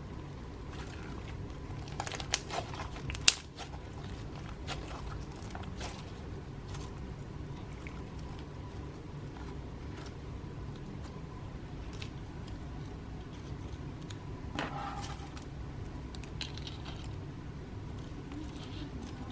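Slime being squished and pressed by hand, with scattered small clicks and pops; a few sharper clicks come about two to three seconds in. A steady low hum runs underneath.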